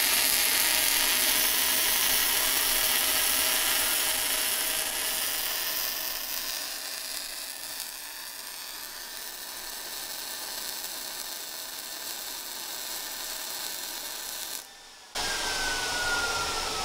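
Miller Multimatic 220 AC/DC MIG welding a straight bead on quarter-inch steel with 0.030 wire and 75/25 shielding gas on auto-set: a steady crackling, sizzling arc. It is louder for the first few seconds and stops near the end.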